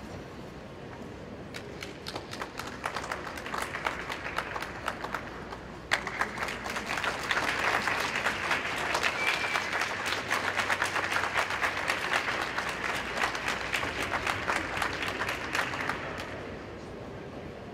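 Small audience applauding. The clapping starts about one and a half seconds in, gets much louder about six seconds in, and dies away near the end.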